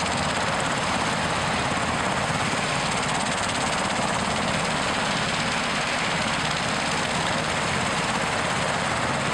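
UH-60 Black Hawk helicopter on the ground with its main rotor turning: a steady rush of rotor and twin turboshaft engine noise.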